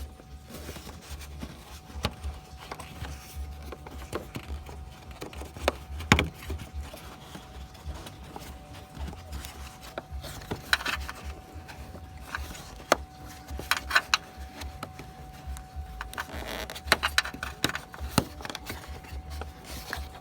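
Rubbing, scattered clicks and a few sharp knocks as a rubber dust cover is worked and pressed back onto the back of a car's headlight assembly.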